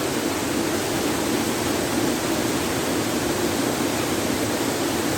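Waterfall's rushing water, a steady, even noise.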